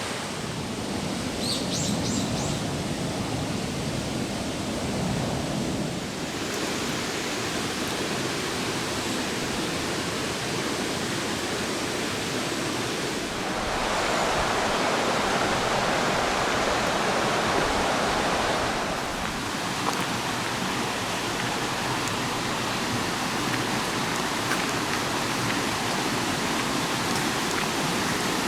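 A stream or small river flowing, a steady rush of water that swells louder for several seconds around the middle.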